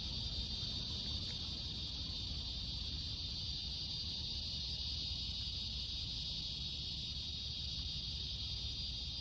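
Steady chorus of night insects, a continuous high-pitched drone, over a faint low rumble.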